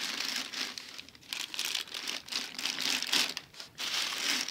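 Thin plastic garbage bag being handled and crumpled, crinkling in irregular bursts with a couple of short lulls.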